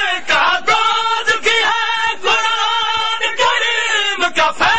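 Men's voices singing a noha, a Shia lament, in long held notes, over regular sharp slaps about two to three a second from chest-beating (matam) in the crowd.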